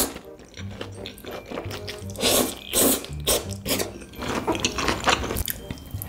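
Slurping and chewing of saucy noodles, with two loud slurps about two and three seconds in, over background music.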